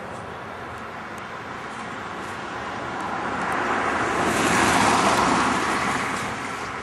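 A vehicle going past: road and tyre noise swells to a peak about five seconds in, then fades away. No horn sounds.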